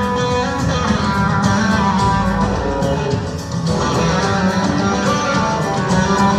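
Live band playing a song, with electric and acoustic guitars over keyboards.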